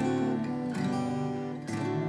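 Acoustic guitar strummed, with chords struck about once a second and left ringing between strokes.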